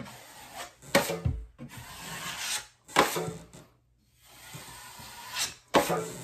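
Steel drywall taping knife feathering joint compound along a butt joint: a series of short scraping strokes across the board, about one a second, with the knife also scraped against the edge of the metal mud pan.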